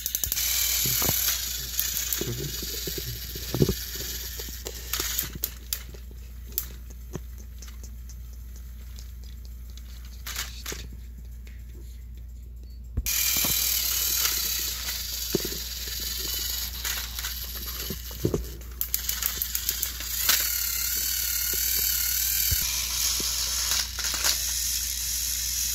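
Battery-powered Thomas & Friends toy train motors whirring, their gears and wheels rattling on plastic track as two engines push against each other. The sound drops away for several seconds and comes back abruptly about halfway through.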